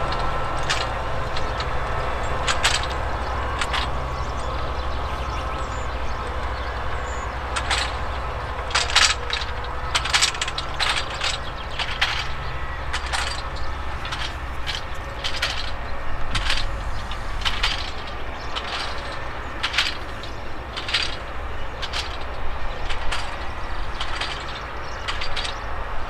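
Claas Axion 960 tractor's diesel running steadily under load as it pulls a Rabe Kormoran eight-furrow plough with a packer. Over the engine come many irregular sharp cracks and clicks from the plough and packer working through the soil, thicker from about a third of the way in.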